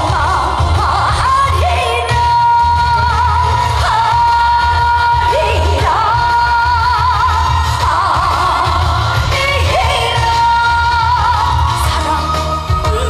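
A woman singing a trot song live over band accompaniment, holding long notes with vibrato above a steady bass.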